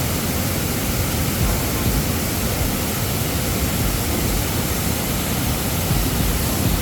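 Steady rushing of a mountain river, an even, unbroken water noise.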